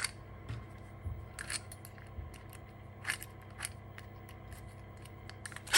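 Small drill's bit being changed by hand: a few sharp clicks and light taps of the bit and chuck being handled, over a faint steady hum, with a louder click at the very end.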